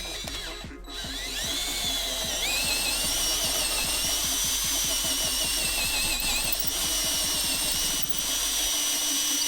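A power drill running continuously under load with a high whine that rises in pitch about two seconds in as it speeds up, most likely drilling so that a pin that didn't fit will go into the new billet shifter.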